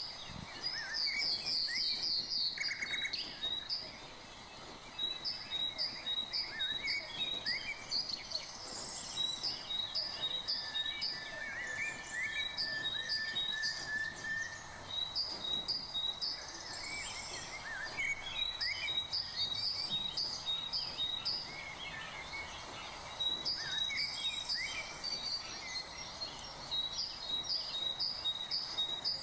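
Birds chirping: runs of short, high, evenly spaced chirps, about four a second, that stop and start every few seconds, over a steady background hiss.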